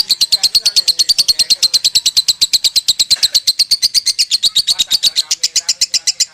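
Lovebird singing in the 'konslet' style: a long, unbroken chatter of sharp high notes, about a dozen a second, with no pause.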